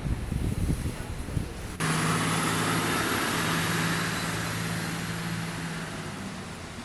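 Wind rumbling on the microphone, then, after a sudden cut about two seconds in, road traffic: a vehicle's steady engine hum and tyre hiss that slowly fade away.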